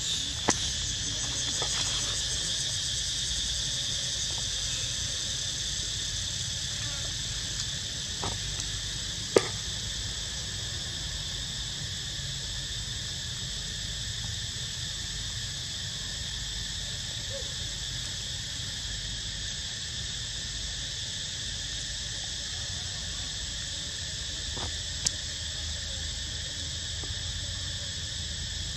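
Steady high-pitched insect chorus, droning without a break, with a few sharp clicks: one soon after the start, the loudest about nine seconds in, and another near the end.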